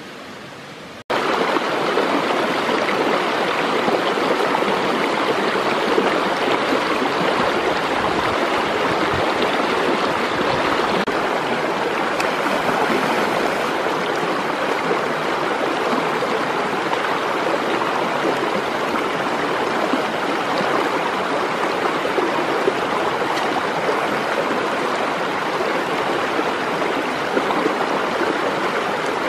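Shallow rocky stream running fast over stones: a steady rushing of water that starts abruptly about a second in.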